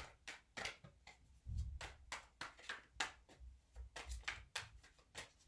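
Tarot cards being shuffled by hand, an overhand shuffle giving a quick, faint run of card slaps and flicks, about four a second.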